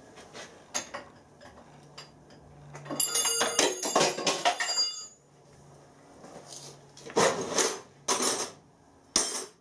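Steel spanner clinking and ringing against the nuts of a milling machine's swivel head as they are loosened. A burst of metallic clattering and ringing about three seconds in is the loudest part, followed by a few short scuffing noises near the end.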